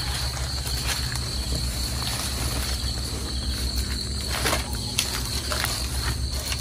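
Insects, crickets by their sound, chirring steadily at one high pitch, over a low pulsing hum. A few sharp clicks and knocks come near the middle and end.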